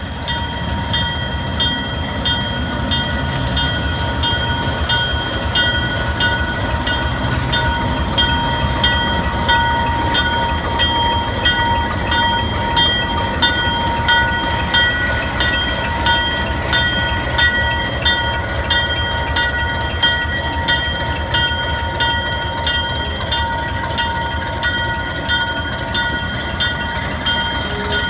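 A bell rings steadily, about two strikes a second, each strike ringing on. Under it runs the low, steady sound of a White Pass & Yukon Route diesel locomotive rolling slowly past.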